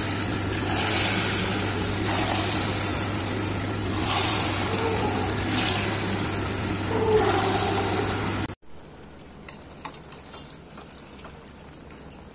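A loud steady rushing noise with a low hum, growing brighter every second or two, that cuts off sharply about two-thirds of the way through. After that comes quieter crackling of buckwheat-flour pakoras frying in hot oil in a steel kadhai.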